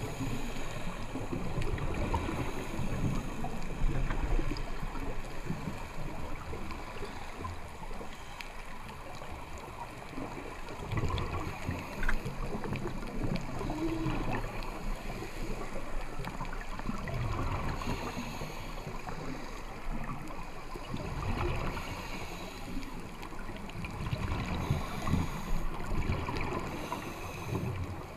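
Muffled underwater sound picked up through a camera housing, with the low, gurgling rumble of scuba regulator exhaust bubbles swelling in bursts every few seconds.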